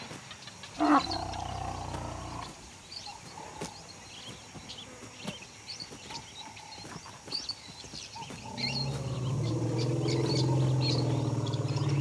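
Deep calls from a large wild animal: a short call with a falling note about a second in, then a long, steady low call near the end. Short high chirps run throughout.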